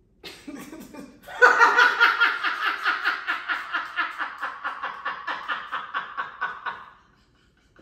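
A woman laughing hard: a long run of rapid, evenly pulsed 'ha-ha-ha' that starts about a second in and stops about a second before the end.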